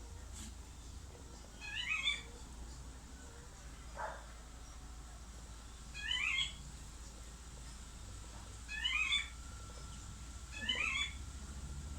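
A chicken making a short, high-pitched call four times, a few seconds apart, with a fainter, lower one between the first two; the owner cannot tell whether it is a cough or a sneeze.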